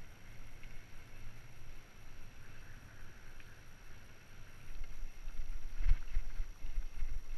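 Riding noise from a mountain bike: a low rumble of tyres and wind on a paved lane. About five seconds in it turns into louder rumbling with sharp knocks and jolts as the bike rolls over a rough stony track.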